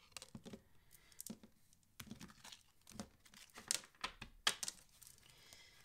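Deck of tarot cards being shuffled by hand: soft, irregular flicks and slaps of cards, with a few sharper ones about four seconds in.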